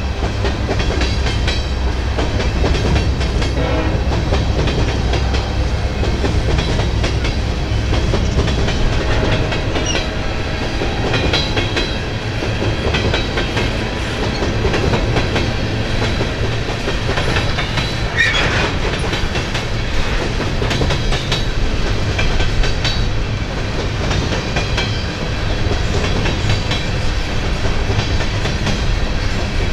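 Freight train of coal cars rolling past: a steady rumble of steel wheels clicking over rail joints, with the diesel locomotives' low drone strongest in the first few seconds. A brief high squeal about eighteen seconds in.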